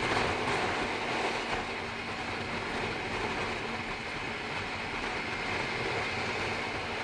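Steady wind rush over an action camera's built-in microphone on a Bajaj Pulsar NS200 motorcycle riding at about 90 km/h on the highway. The bike's single-cylinder engine and tyre noise run under it as a faint steady hum.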